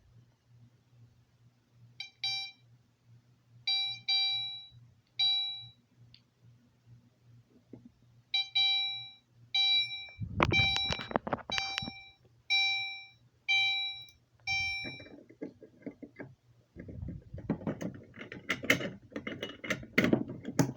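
Fire alarm horn set to chime, sounding short ding tones about once a second: three, a pause of a couple of seconds, then about seven more. Clattering handling noise joins in the middle and takes over in the last few seconds, over a steady low hum.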